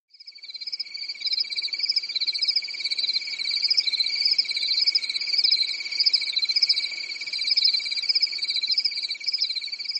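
A night chorus of calling insects and frogs: a dense, steady, high-pitched trilling that starts suddenly out of silence.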